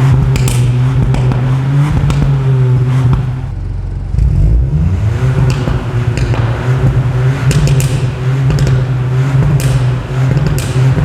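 Ford Puma's three-cylinder turbo petrol engine running through an exhaust with its flaps held open, holding a steady high engine note. A little over three seconds in it drops away briefly, then sweeps back up and holds steady again.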